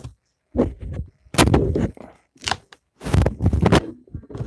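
Chewing crunchy snack chips right at the microphone: a run of loud, irregular crunches.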